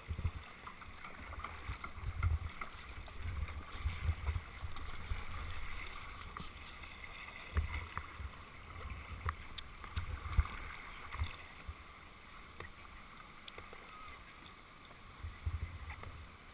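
A kayak paddle sweeping through river water, with light splashing and a few sharp splashes or knocks about 8 to 10 seconds in, under gusts of wind rumbling on the microphone.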